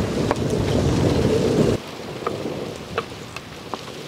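Sliced onions and green chillies frying in hot oil in a clay pot, stirred with a wooden spoon that gives a few light knocks against the pot. A low rushing noise fills the first half and stops abruptly just under two seconds in.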